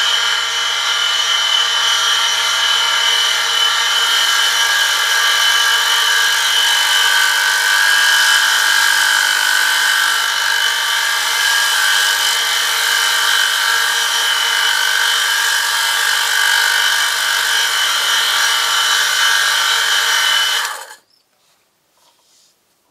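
Electric-motor oil friction test rig running under a 1 kg lever load, its spinning ring rubbing metal-on-metal against a sample lubricated with 5W-30 engine oil: a steady high-pitched whine over a low mains hum. It stops abruptly about 21 seconds in.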